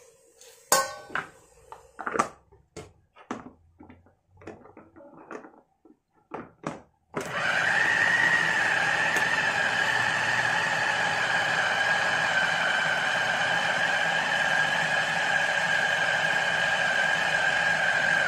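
Small electric food chopper grinding ground meat and fat into a smooth paste: a steady, high motor whine that starts about seven seconds in and runs for about eleven seconds. Before it, a run of short clicks and knocks as the spoon, bowl and motor head are handled.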